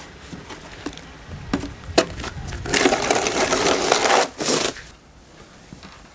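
Snow shovels scraping through snow: a few sharp knocks, then a long scrape of about a second and a half and a shorter one just after.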